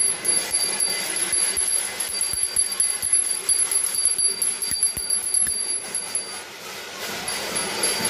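Small brass hand bell shaken rapidly and continuously, a steady high ringing that breaks off briefly about six and a half seconds in and then starts again.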